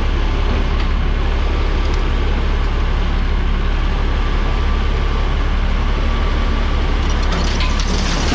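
Heavy diesel earthmoving machine running steadily with a deep low rumble, with a few light clicks near the end.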